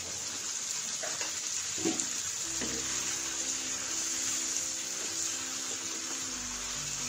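Chicken pieces sizzling and bubbling in their own released juices in an uncovered frying pan, a steady hiss, with a spatula stirring through them and knocking lightly a couple of times.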